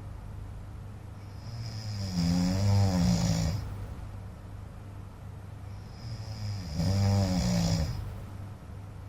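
A man snoring loudly: two long snores about four seconds apart, each lasting about two seconds, with quieter stretches between.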